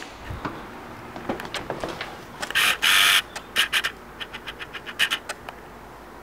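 Footsteps and handling noise in an empty tiled room: scattered clicks and knocks, with a louder rattling clatter about two and a half seconds in and a quick run of small clicks a second later.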